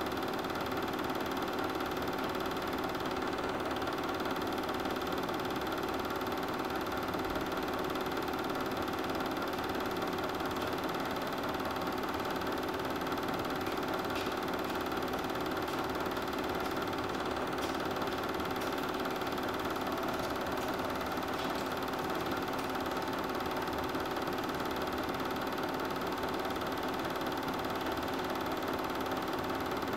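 Super 8 film projector running steadily: an even mechanical hum with several held tones.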